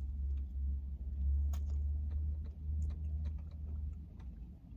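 A person chewing food close to the microphone: scattered small wet mouth clicks over a steady low hum.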